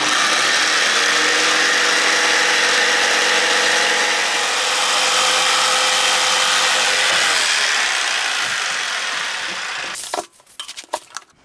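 Electric jigsaw cutting a 45-degree mitre across a wooden door casing board, running steadily for about ten seconds and then stopping. A few short knocks follow as the saw is lifted off the board.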